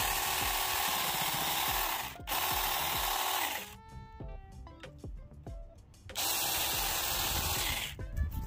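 Battery-powered Saker mini chainsaw running in two bursts while trimming thick kale stalks, its motor giving a steady whine. It stops briefly about two seconds in, cuts out a little before halfway, and starts again about six seconds in until near the end.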